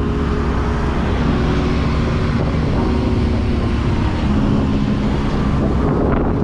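A motor vehicle's engine running at a steady speed under loud wind rush on the microphone, as while moving.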